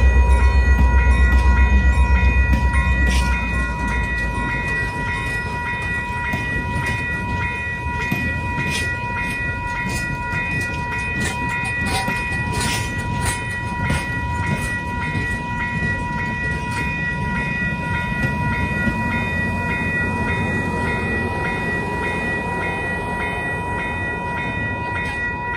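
A passenger train's coaches rolling past a grade crossing, with sharp clicks from the wheels through the middle stretch, while the crossing signal's bell keeps ringing. The diesel locomotive's engine rumble fades away over the first three seconds.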